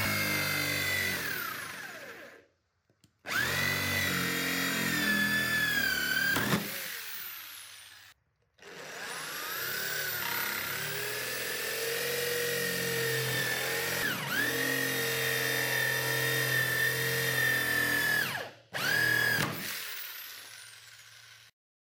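Electric drill turning a hole saw through a plastic bucket lid, running in four bursts with short breaks between them. The motor whine dips in pitch as the saw bites and winds down each time it stops.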